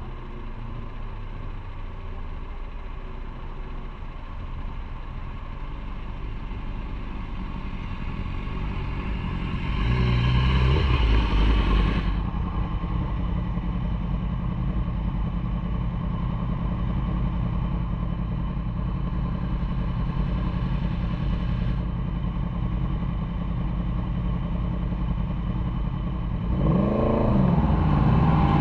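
Motorcycle engine running steadily under way, with wind rushing past. It gets louder for a couple of seconds about ten seconds in, and near the end the revs swing and climb as the bike accelerates.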